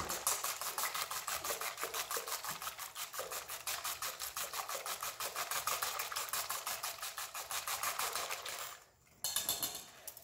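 Wire whisk beating eggs in a stainless steel bowl: a rapid, even rattle of metal wires striking the bowl, stroke after stroke. It stops near the end, followed by a brief clatter.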